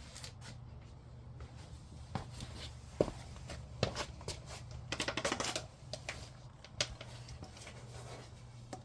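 Small clicks, knocks and rustling from handling objects while working on the generator, with a quick rattling run of clicks about halfway through, over a steady low hum.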